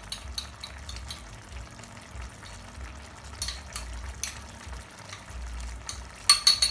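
A spoon stirring in a small ceramic bowl, mixing corn flour with a little cold water into a slurry, with scattered light clicks of the spoon against the bowl. Near the end come three quick, loud clinks, as of the spoon tapped on the bowl's rim.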